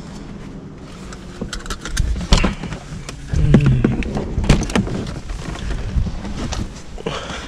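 Clicks, knocks and rustling as the driver of a parked Mercedes-AMG C63 S pulls the interior door handle and opens the driver's door, with a heavy low thump about three and a half seconds in.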